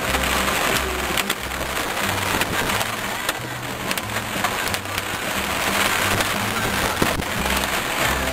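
Background music with a steady bass line, over the hiss and scattered clicks of rain hitting the car.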